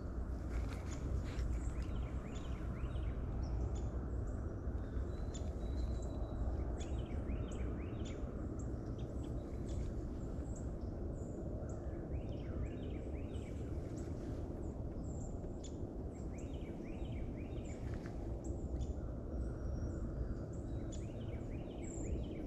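Birds chirping and trilling in short, frequent calls over a steady low rumble.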